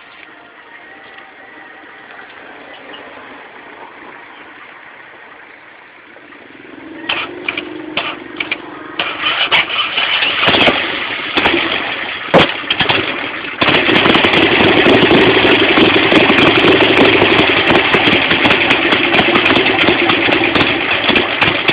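Harley-Davidson Sportster 883's air-cooled V-twin starting up: it sputters and catches unevenly for several seconds, then settles into loud, steady running about two-thirds of the way in.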